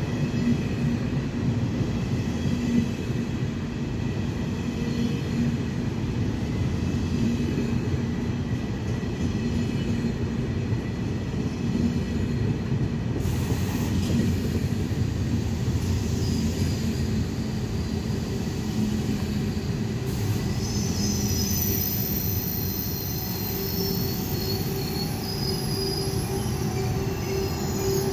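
Original 20-car KTX high-speed train rolling along the station platform, a steady rumble of wheels on the rails. About twenty seconds in, a high-pitched squeal joins it and keeps on.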